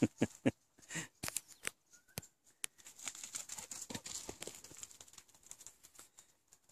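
Footsteps crunching on twigs, leaf litter and gravel, with irregular knocks and rubbing from handling the phone.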